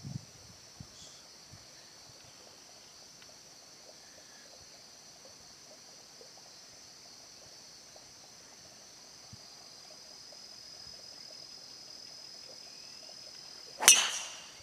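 A golf club strikes a teed ball with one sharp crack and a short ring, near the end. Under it, a steady, high-pitched chorus of insects sounds.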